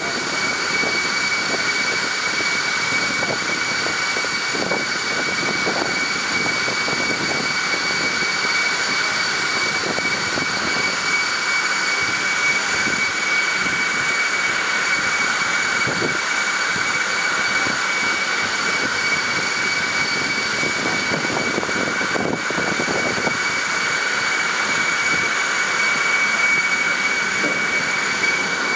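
Steady high-pitched whine of an aircraft turbine running at constant speed, several fixed tones over a continuous rushing noise.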